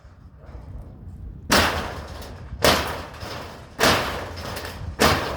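Four heavy blows against the barn's structure about a second apart, each a sharp crash with a rattling tail as the boards are knocked loose during demolition.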